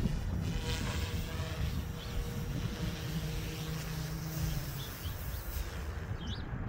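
Goosky S2 RC helicopter's rotors and motors whirring as it comes down and lands, the whir stopping about five seconds in as it spools down. Wind buffets the microphone throughout, and birds chirp near the end.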